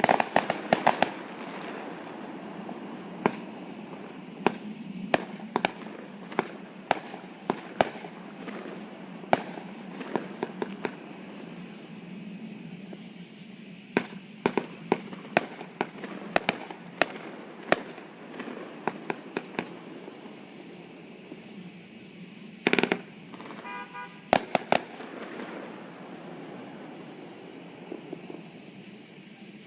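Fireworks going off across a lake: sharp bangs and pops at irregular intervals, thick at first and thinning out, the last ones about five seconds before the end. A steady high chirring of crickets runs underneath throughout.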